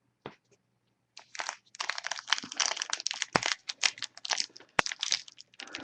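Foil trading-card pack wrapper crinkling as the pack is handled and torn open, a dense crackle that starts about a second in after a couple of faint clicks.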